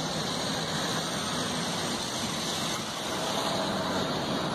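Steady hum and hiss of road traffic, with no single vehicle standing out.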